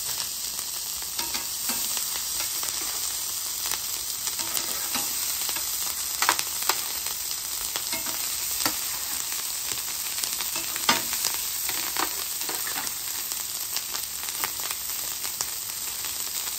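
Cold cooked rice sizzling in hot oil on a flat-top griddle, a steady hiss. Scattered sharp clinks and scrapes come from a metal spatula pushing the rice off an aluminium sheet pan and across the griddle.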